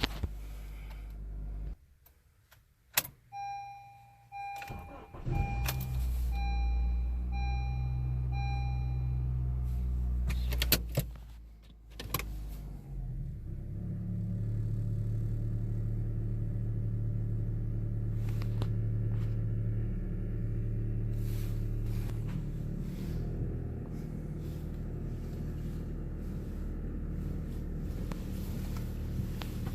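2012 Honda Civic: a click, then a dashboard warning chime beeping about eight times as the engine comes in and runs with a low hum. Two sharp knocks follow, then the engine runs on steadily with a low hum; the owner finds the car's sound weird.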